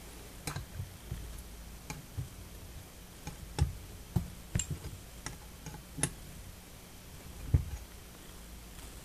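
Small irregular metallic clicks and taps from the cast-iron igniter of a hit-and-miss engine being worked by hand with locking pliers clamped on it, with two louder knocks, one mid-way and one near the end.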